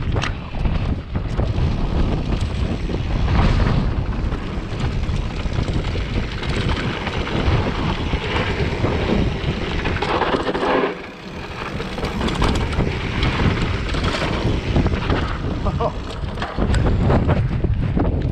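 Strong gusting wind buffeting the microphone of a camera on a mountain bike riding a dirt trail, a loud, steady rumble that briefly drops about eleven seconds in.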